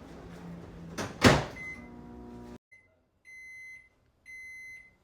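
Microwave oven running with a steady hum, with a loud knock a little over a second in. The hum cuts off about two and a half seconds in, and the oven starts its end-of-cycle beeping: evenly spaced high beeps about once a second, showing the heating is done.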